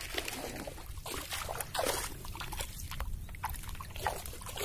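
Faint sloshing and trickling of shallow tidal water over a rocky reef flat, with scattered small splashes and clicks from someone moving about in it.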